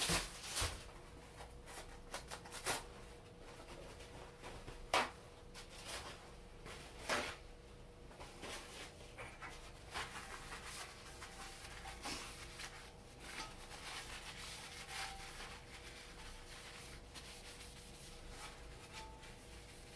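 Kitchen paper rubbing a rectangular copper tamagoyaki pan dry, soft irregular wiping strokes broken by occasional sharp light clicks as the pan is handled.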